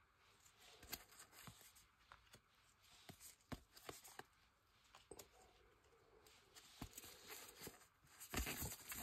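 Faint handling of trading cards and foil card packets: scattered small clicks and brief rustles, with a louder rustle near the end.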